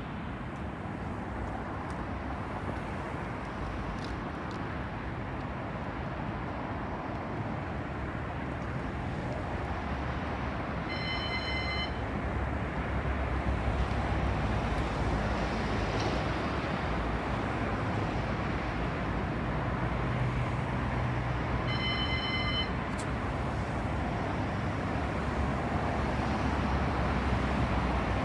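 CAF Urbos 100 tram approaching slowly and drawing alongside the platform, its running noise and low hum growing louder as it nears. A short electronic tone sounds twice, about ten seconds apart.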